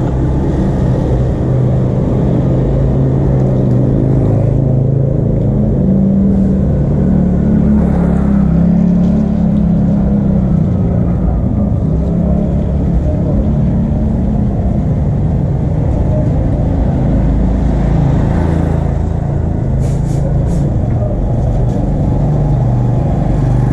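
Motor vehicle engines running, a steady low rumble with a slowly shifting engine note.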